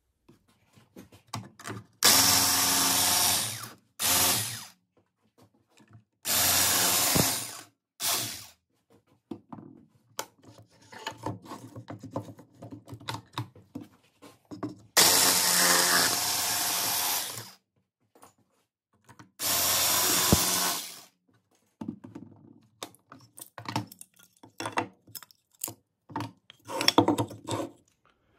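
An electric power tool running in repeated short bursts of about two seconds each, switched on and off four main times with a couple of brief blips. Scattered light clicks and knocks come between the bursts.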